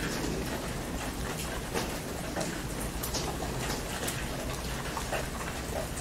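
Heavy rain falling steadily on a tent, with scattered sharp drop hits over an even hiss and a low rumble beneath.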